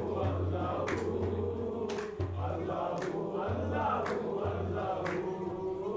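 A group of men chanting devotional dhikr together, with a sharp beat struck about once a second.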